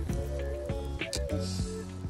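Background music: a stepping melody over a regular percussion beat.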